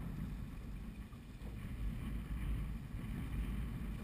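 Wind buffeting the microphone as a boat rocks on choppy lake water, with waves lapping against the hull: a steady low rumble and no engine note.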